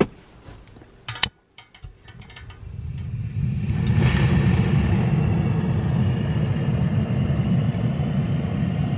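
Portable propane camp-stove burner being lit: a few sharp igniter clicks, then the gas catches about three seconds in and the burner runs with a steady low rushing roar of the flame.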